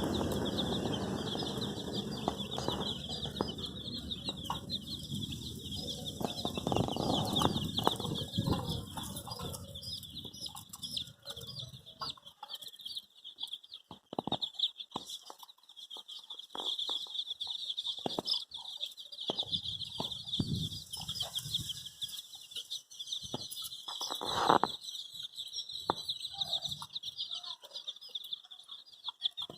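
A brood of baby chicks peeping constantly, many high chirps overlapping into a dense chorus. Scuffling and wing-flutter rustle under it for the first half, with a few scattered knocks later.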